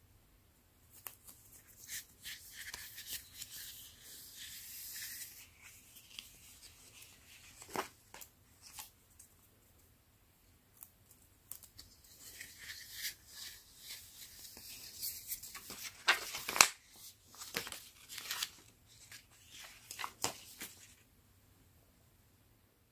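A roll of thin printed paper from a Phomemo thermal mini printer being handled and unrolled in the fingers: paper rustling and crinkling in two spells, with a few sharper crackles partway through the second.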